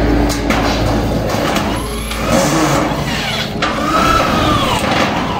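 A motor revving up and down twice, its pitch rising then falling each time, over steady background noise.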